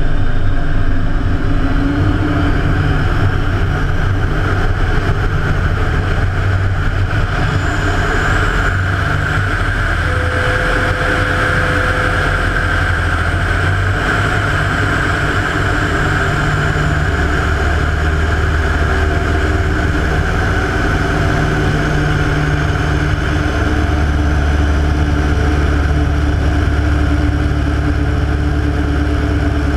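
Rotec R3600 nine-cylinder radial engine of a Hatz Classic biplane running in flight, its low note shifting with power changes a few times. Heavy airflow noise buffets the wing-mounted microphone.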